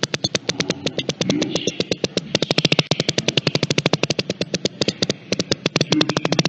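A long rapid-fire rattling fart: a fast, even string of pops, about ten a second, over a low buzz.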